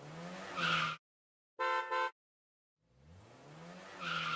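Intro sound effects: a swelling sound rising in pitch, two short bright ringing notes about one and a half seconds in, then the rising swell again near the end.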